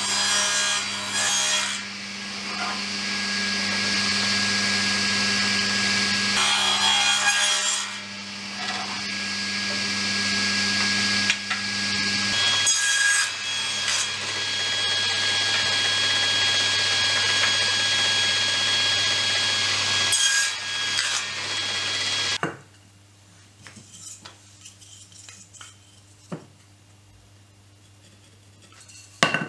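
Table saw running and cutting pine strips, a steady motor hum under the hiss of the blade in the wood. About three-quarters through the saw sound stops suddenly, leaving quiet with a few light knocks and a sharp click near the end.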